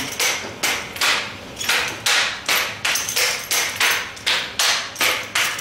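Hands slapping and gripping a drill rifle in quick, sharp manual-of-arms movements, a fast run of crisp smacks about two to three a second. Each smack is a hard stop of the rifle, the hands slammed onto it.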